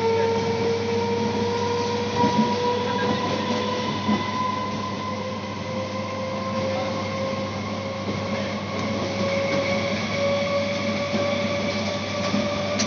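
Electric multiple-unit suburban train accelerating hard, heard from aboard. Its traction motors whine in a tone that climbs steadily in pitch as speed builds, over a constant rumble of wheels on rail, with a few light clicks from the track.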